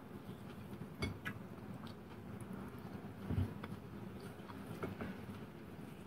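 A person eating by hand: faint chewing with small scattered clicks, a sharper knock about a second in and a low thump about three and a half seconds in.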